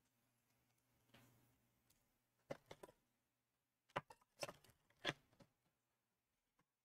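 Near silence broken by two short clusters of light clicks and taps from trading cards and their packaging being handled.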